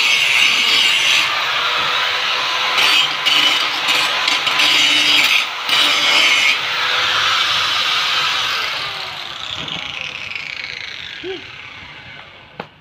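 Corded angle grinder grinding rust off a steel frame, a harsh steady grind over the motor's whine, with a few brief dips as the disc lifts off the metal. About seven seconds in it is switched off, and the sound falls away slowly as the disc spins down.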